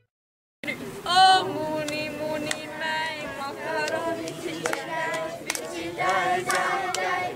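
A group of voices singing a song without instruments, starting about half a second in after a moment of silence.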